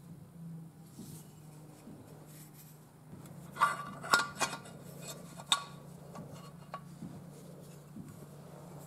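Light metal clinks and knocks from steel jig parts being handled and fitted by hand, with a cluster of sharp ringing clinks in the middle, over a faint steady low hum. The grinder is not running.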